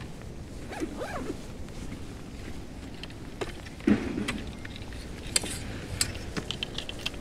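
Gear being handled at a plastic bucket close to the microphone: rustling, small clicks and knocks, a brief squeak about a second in and a louder thump about four seconds in, over a steady rush of background noise.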